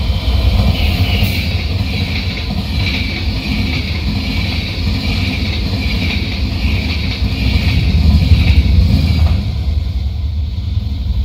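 Locomotive-hauled passenger train passing close at speed: a steady rumble and rattle of wheels on the rails, easing a little after about nine seconds as the last coaches go by.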